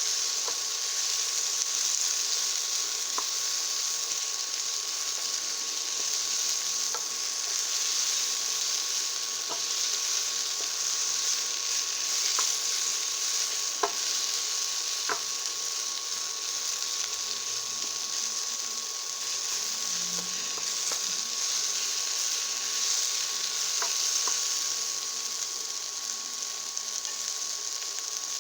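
Sliced green peppers and onions sizzling steadily as they stir-fry in sesame oil in a pan, with a few sharp clicks as they are stirred.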